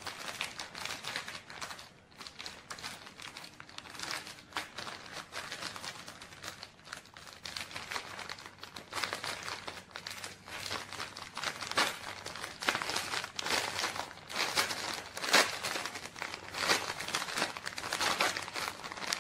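Thin clear plastic packaging crinkling and crackling as fingers pull and twist at it, struggling to open it. The crackles come irregularly throughout and grow busier and louder in the second half.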